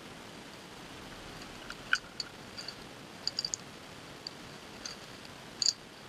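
Scattered brief, high-pitched tinkling clicks over a faint steady outdoor hiss, the sharpest about two seconds in, a quick cluster of three or four in the middle, and another near the end.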